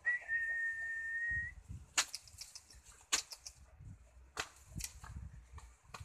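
A single steady high whistle lasting about a second and a half, followed by scattered sharp clicks and soft low thuds.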